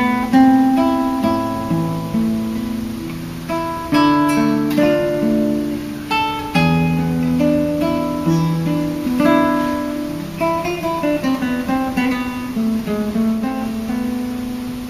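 Solo acoustic guitar playing the instrumental ending of the song. Picked notes and strummed chords ring out and decay, and a last chord is held and fades near the end.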